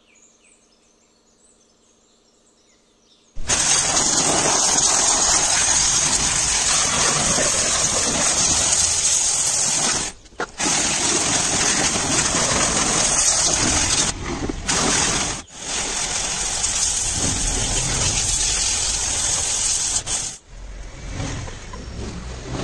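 Pressure washer jet spraying onto a Bajaj Chetak scooter's body: a loud, steady hiss of water that starts a few seconds in, cuts out briefly three times, and eases off near the end.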